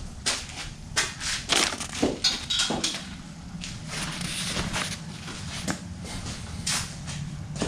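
Handling noises in a workshop: an irregular run of clicks, taps and crinkling rustles.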